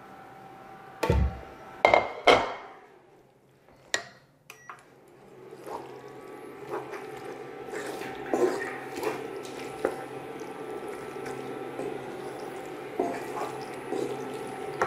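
Ceramic dishes clattering on a granite countertop: three sharp knocks with a short ring about one to two and a half seconds in as a serving platter is handled and set down. After that comes a steady hum with scattered light clicks and taps of kitchenware.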